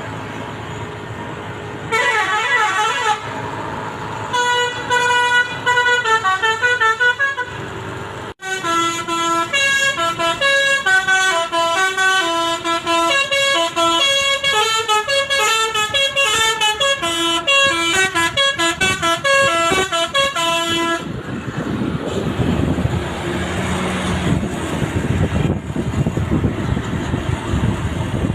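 Basuri telolet horn on a bus playing a melody of quick changing notes. There is a short phrase about two seconds in, another around five seconds, then a long tune from about eight to twenty-one seconds. After that only a low rumble remains.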